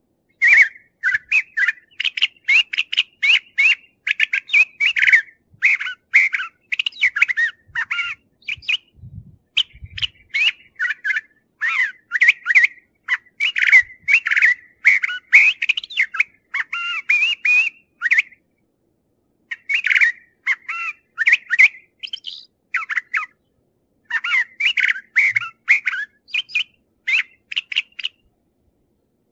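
Brown thrasher singing: a long run of rapid, varied phrases with short pauses between them, and one longer pause about two-thirds of the way through.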